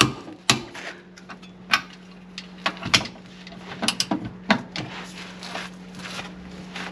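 Socket and long-handled wrench working the camper trailer's suspension bolts up to about 190 newton metres: irregular sharp metallic clicks and clinks. A steady low hum runs underneath.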